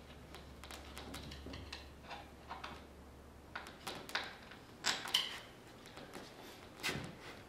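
Light metallic clicks and clinks of small hardware and tools being handled, a few at a time, loudest about five seconds and seven seconds in.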